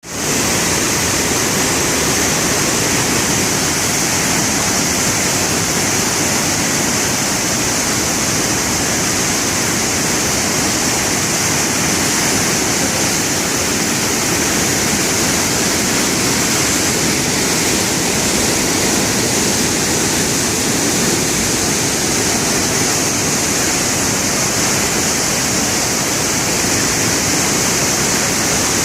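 Floodwater rushing in a steady, loud, unbroken wash of water noise.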